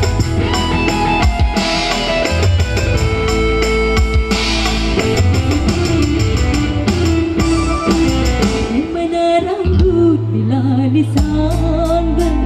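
Live band music at a steady beat, a keyboard with programmed drums, played loud through PA speakers; from about halfway through, a woman's voice sings over it.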